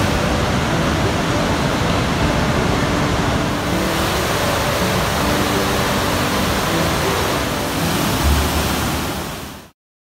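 Rushing water of river cascades and small waterfalls, a steady, even roar that fades out quickly near the end.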